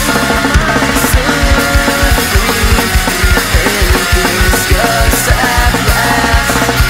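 Fast melodic punk rock song with guitars over a fast, driving drum beat, the kick drum hitting several times a second and cymbals crashing now and then.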